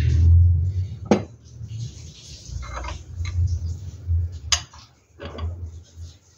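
Metal hand tools and fittings clinking and tapping: a few sharp clicks spread over several seconds, over a steady low hum.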